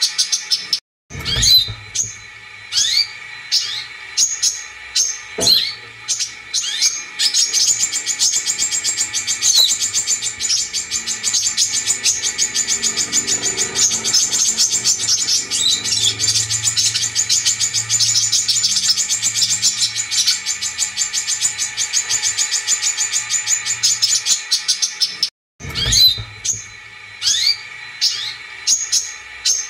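Brown-throated sunbird song played as a lure recording: quick high-pitched chirps and a fast, dense trill through the middle, broken by a moment of silence about a second in and again near the end.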